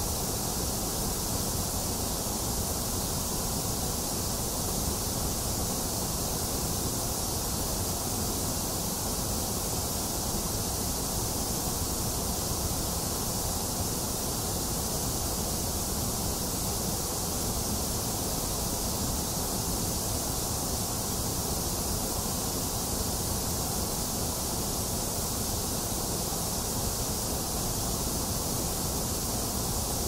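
Steady white noise, an even hiss that does not change in level or character, of the kind played to soothe a crying baby to sleep.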